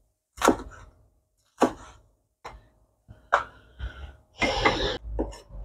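Cleaver-style kitchen knife chopping chillies on a bamboo cutting board: about five sharp knocks roughly a second apart. Near the end there is a short rustling noise, then one more knock.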